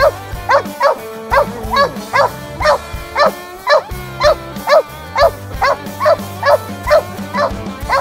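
Treeing cur barking treed at the foot of a tree, a steady chop of about two short barks a second. This is the sound a squirrel dog makes to mark a squirrel it has treed.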